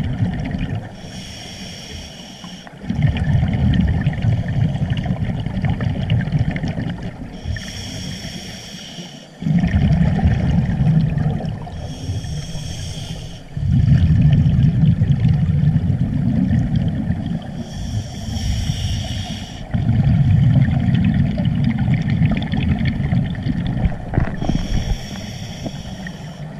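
Scuba regulator breathing heard underwater: about five slow breaths, each a short hissing inhale through the regulator followed by a longer low rumble of exhaled bubbles.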